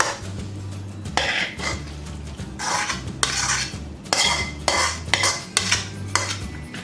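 A utensil scraping thick, creamy dip out of a mixing bowl into a baking dish: about ten short scrapes with light knocks against the dishes.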